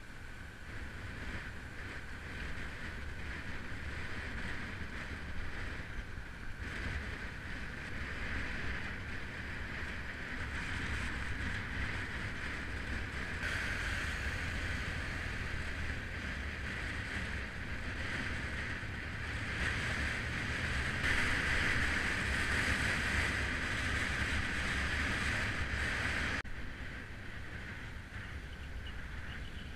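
Wind rushing over an action camera's microphone on a moving road bike, over a low road rumble. It grows louder for several seconds in the second half, then drops suddenly about 26 seconds in.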